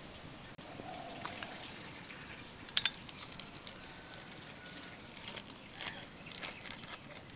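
Faint hand-work sounds from assembling stuffed rotis: scattered light clicks and rustles, with one sharper click about three seconds in.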